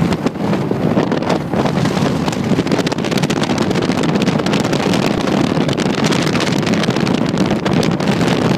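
Wind buffeting the microphone on the open deck of a moving ferry, over the steady rumble of the boat's engines and the churning of its wake.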